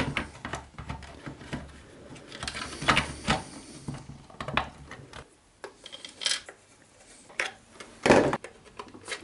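Plastic case of a Taranis X9D Plus radio transmitter being handled and its two halves pressed back together: irregular clicks, taps and knocks, with a louder knock about eight seconds in as the radio is turned over.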